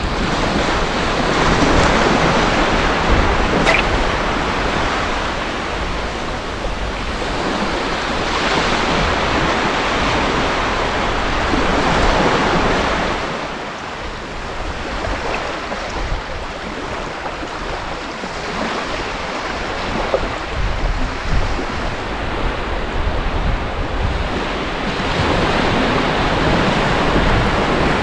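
Small waves breaking and washing up a shallow shore, swelling and ebbing every few seconds, with wind rumbling on the microphone.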